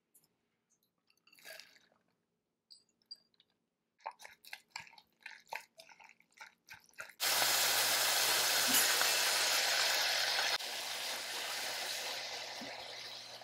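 A metal spoon mixing wet kimchi with mayonnaise in a glass bowl makes sparse, then quick, squishing strokes. About seven seconds in, kimchi starts sizzling loudly in a frying pan, the loudest sound here; it drops a little and fades toward the end.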